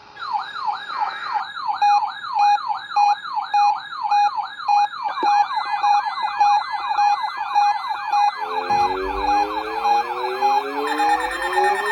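Electronic siren in a fast yelp, its pitch sweeping up and down about three times a second, layered with a pulsing beep. From about eight and a half seconds in, further siren tones start rising slowly in pitch underneath.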